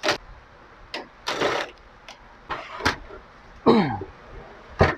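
Handling noise from an inverter welding machine's casing on a workbench: sharp knocks and clicks, scraping as the unit is moved and tilted, and a short falling whine about three quarters of the way through.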